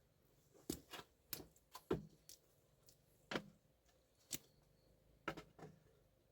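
About a dozen light, irregular knocks and clicks, bunched in the first two seconds and then spaced a second or so apart, the loudest about two seconds in.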